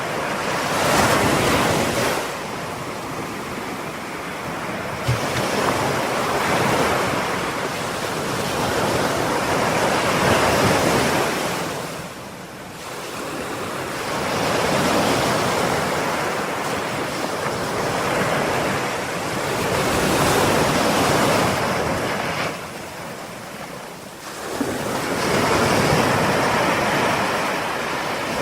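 Ocean waves breaking and washing on a shore, loud surges of surf swelling and fading every few seconds, with some wind on the microphone.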